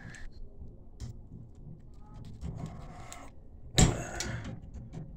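Metal pliers clicking and scraping on a Moen faucet cartridge as it is forced into the tub valve body, not yet seated, with a sharp knock about four seconds in.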